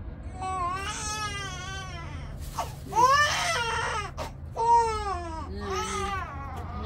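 A baby crying in a run of about five wailing cries, each rising and then falling in pitch, the loudest about three seconds in. A steady low hum runs underneath.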